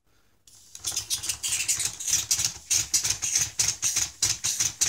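Lego pneumatic engine running on propellant from a silicone spray lubricant can, starting about half a second in. It hisses and clacks in fast, even puffs, about four a second, as the spray lube is driven through its cylinders and switch valves.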